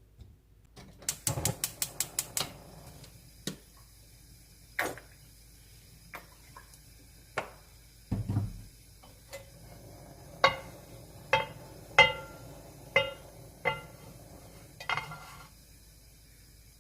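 Kitchen utensil knocking against a dish: a quick run of about eight knocks just after a second in, a few scattered knocks, then a slower series of strikes that ring with a clear tone near the end.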